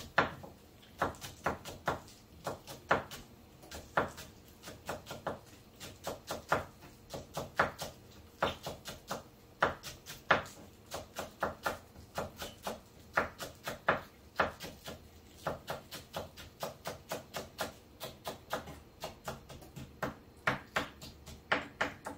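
A knife or cleaver chopping again and again on a cutting board, in uneven strokes of about two to three a second.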